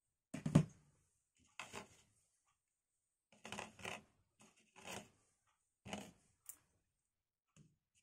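Computer-part packaging being handled during an unboxing: a low thump near the start, then a string of short rustling and scraping sounds about a second apart.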